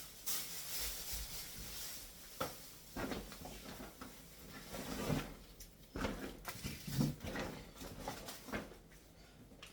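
Groceries and kitchen things being handled and put away: a rustle, then a string of knocks and clatters about a second apart, like items set down and drawers or cupboards opened and shut.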